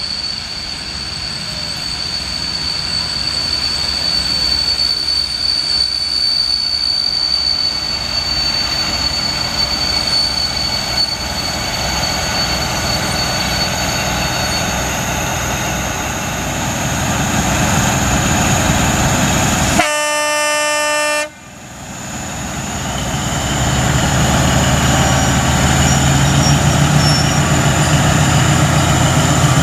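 LDH 125 diesel-hydraulic locomotive approaching with a passenger train. A high steady wheel squeal sounds through the first half as it rounds the curve, while its diesel engine grows steadily louder. About two-thirds through there is one horn blast of just over a second. Then the engine is heard loud and low as the locomotive comes close.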